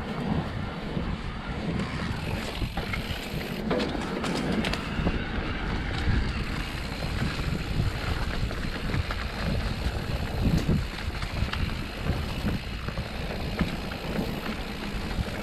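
Mountain bike riding fast down a rough dirt trail: tyres rumbling over the ground and the bike rattling with scattered clicks, with wind buffeting the microphone.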